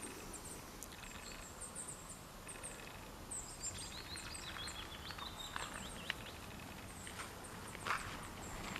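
Faint birdsong: small birds chirping high and quick, with a run of short falling notes in the middle, over a soft outdoor hush. A couple of brief soft knocks near the end.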